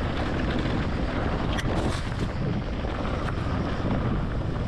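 Electric mountain bike riding down a dirt trail: wind buffeting the microphone over a steady rumble and rattle from the tyres and frame, with a few sharp knocks as the bike hits bumps.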